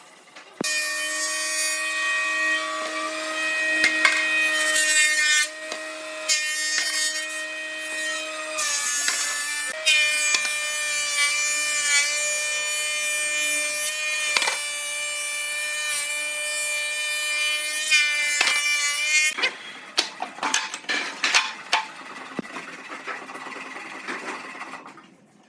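A power tool running and cutting wood with a steady high whine that dips slightly in pitch at moments, broken by a few knocks. The whine stops after about nineteen seconds, and a rougher scraping with short knocks follows.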